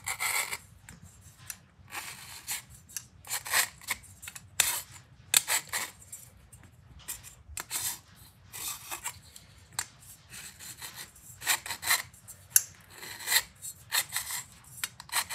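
Tip of a Starrett dial caliper's jaw scribing a line through red marking fluid on a steel colander ring: a run of short, irregular metal-on-metal scratching strokes as it is worked around the rim.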